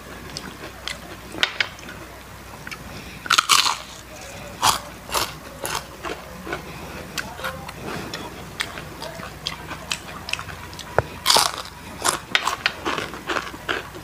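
Super crispy deep-fried chicken skin being bitten and chewed: a run of sharp, irregular crunches, loudest about three and a half seconds in and again about eleven seconds in.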